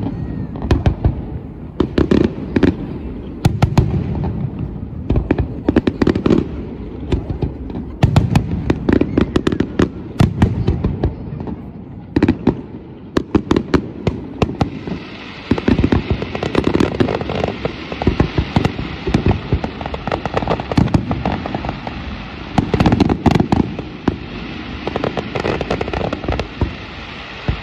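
Aerial fireworks display: shells bursting one after another, often several bangs a second, each with a booming echo. About halfway through, a steady hiss joins the bangs.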